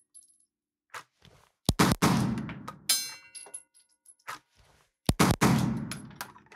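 Girsan MC9 9mm striker-fired pistol fired as two quick pairs of shots, the first pair about two seconds in and the second about five seconds in, each echoing in the small indoor range bay. A short metallic clink falls between the pairs.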